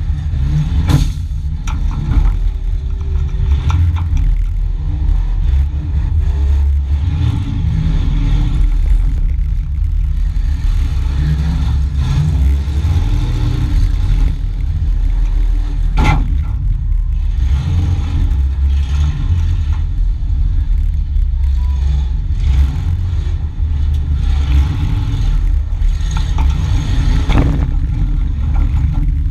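Demolition derby vehicle's engine running and revving hard, heard from inside its stripped cabin, with the body rattling. There are sharp crashes of impact about a second in, about sixteen seconds in, and again near the end.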